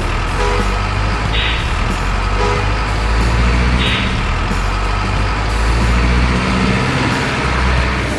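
Heavy diesel truck engine sound running with a steady low rumble, with two short hisses about a second and a half and about four seconds in.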